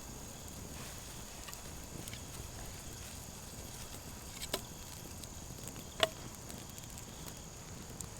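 Campfire under a frying skillet, faint and steady with a thin high hiss, with two sharp pops about four and a half and six seconds in.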